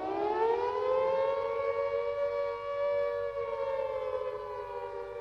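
A siren sounding one long wail: its pitch rises over the first two seconds or so, then holds steady and sags slightly near the end.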